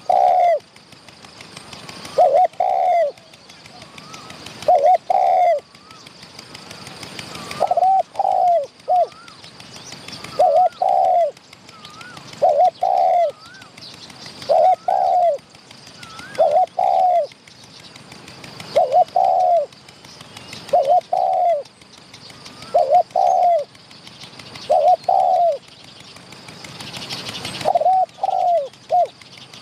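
Spotted dove cooing: a short two- or three-note phrase repeated about every two seconds, the territorial calling of a wild dove answering a caged decoy. Fainter chirps from another bird run between the phrases.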